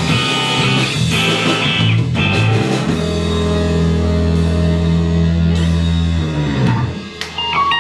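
Rock band playing live with electric guitar, bass and drums, ending on a long held chord that rings out and dies away about seven seconds in, followed by a few loose guitar notes.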